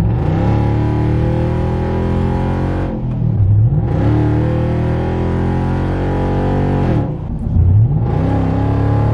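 A 2015 Nissan Titan's 5.6-litre VK56 V8 accelerating, heard from inside the cab through a muffler-deleted exhaust with turndown tips. The note is a little raspy and comes in three pulls: after short breaks, once about three and a half seconds in and again about seven and a half seconds in, the pitch climbs sharply and then holds.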